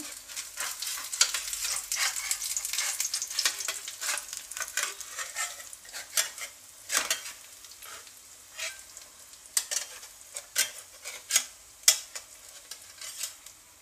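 Oil sizzling and crackling under a jowar thalipeeth shallow-frying in an aluminium pan, while a metal spatula scrapes and taps against the pan, loosening the thalipeeth's edges. The sizzle is dense for the first few seconds and then dies down, leaving sharp scrapes and clicks.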